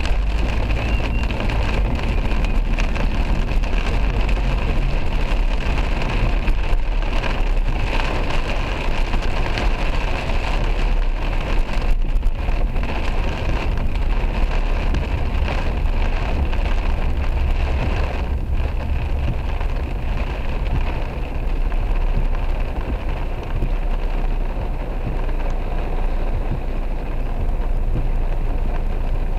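Taxi driving through heavy rain, heard from inside the cabin: a steady rumble of engine and tyres on the wet road, with rain pelting the roof and windscreen.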